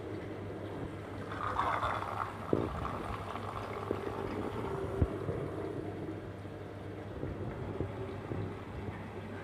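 Water running out of a lab water distiller's overflow pipe and splashing into its drain funnel, over a steady low hum, with a brief louder splash about a second in and a couple of light knocks.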